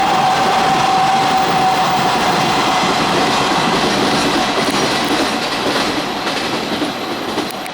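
Train hauling new Toei Oedo Line 12-600 subway cars, behind an EF65 electric locomotive, rolling past on the rails. The wheels clatter over rail joints with a steady high tone over the rolling noise, and the sound fades over the last couple of seconds as the train moves off.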